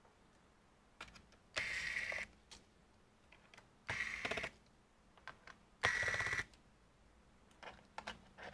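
Electric screwdriver running in three short bursts, each about half a second long and about two seconds apart, with a high whine and rapid clicking, as it undoes the screws of a laptop's bottom cover. There are light clicks of handling in between.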